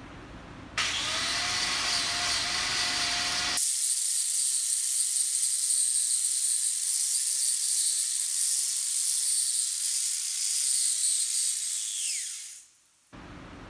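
Stick-welding arc crackling and hissing steadily as a weld pass is run on a hydraulic cylinder. It starts suddenly about a second in and dies away near the end with a brief falling whistle as the rod burns out.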